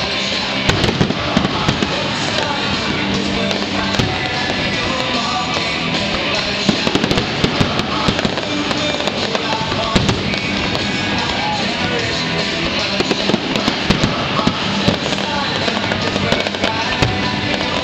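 Aerial fireworks show: a rapid, continuous run of shell bursts, bangs and crackles, heard over music playing throughout.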